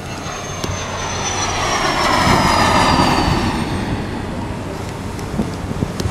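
Airplane passing overhead: the noise swells to a peak about two to three seconds in and then fades, with a high whine falling slowly in pitch.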